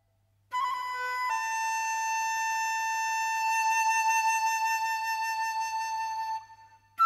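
Background music of a solo flute: after a brief silence, a short note steps down into one long held note with a slight waver, which fades out shortly before the end.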